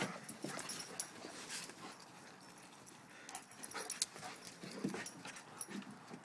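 German shepherds, an adult and a puppy, playing chase: quick scattered scuffs and clicks of running paws, with a few brief dog noises.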